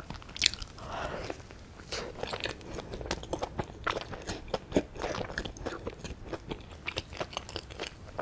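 Close-miked chewing of soboro bread, streusel-topped sweet bread, made up of many small crunches and clicks from the crumbly crust. A sharper crunch comes about half a second in.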